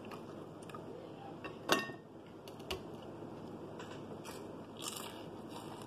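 Quiet eating sounds: one sharp, brief clink of a metal fork against a glass bowl about two seconds in, then a few faint clicks as a fry is bitten off the fork.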